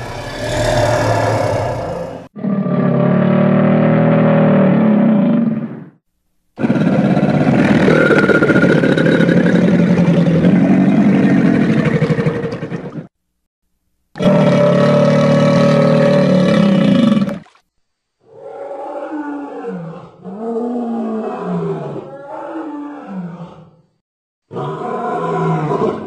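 A series of recorded big-animal roars and growls, tiger and then crocodilian, played one after another: about seven calls, each one to six seconds long, with short silences between them.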